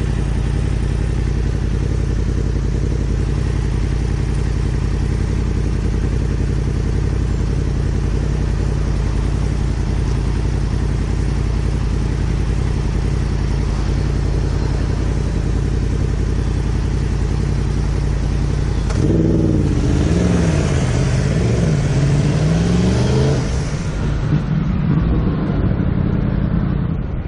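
Honda SH350i scooter's single-cylinder engine running steadily at low revs. About 19 seconds in it pulls away, the engine note rising and falling, with wind rushing over the microphone.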